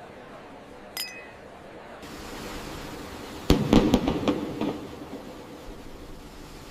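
Two crystal glasses clink once with a short ringing tone about a second in. Then, a little after halfway, a quick volley of firework bangs and crackles sounds for about a second and dies away.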